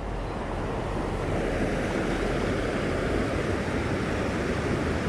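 Loud, steady rush of water pouring over a spillway.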